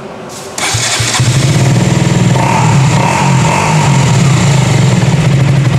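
KTM 125 Duke single-cylinder motorcycle engine, fitted with an EC-approved exhaust, started on the starter. It catches about a second in and then idles steadily, with a deep note.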